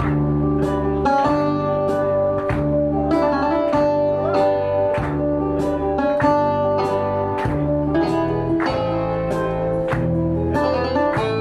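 Greek dance music played live on a Yamaha electronic keyboard, with a plucked-string melody over a steady bass beat of about two strokes a second.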